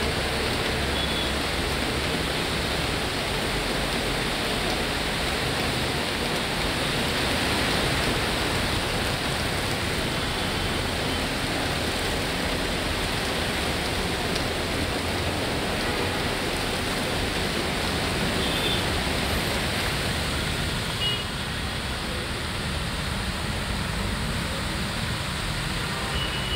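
Steady hiss of heavy monsoon rain mixed with traffic on a wet, flooded road: tyres swishing through water and engines running. The noise drops a little about three-quarters of the way through.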